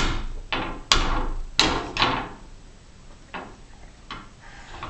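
A series of sharp knocks, about seven in five seconds, the loudest packed into the first two seconds and the later ones weaker.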